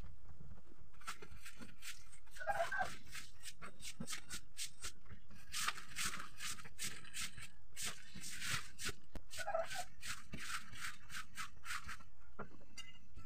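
Broom sweeping a vinyl-covered floor: rapid, repeated brushing strokes that stop about a second before the end. Two brief pitched calls sound in the background, about two and a half seconds in and again near the ten-second mark.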